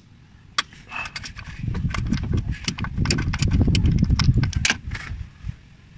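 Socket ratchet clicking in quick, uneven runs as it is worked back and forth to loosen the 12 mm bolt of a belt tensioner. A low rumbling of handling noise runs under it through the middle.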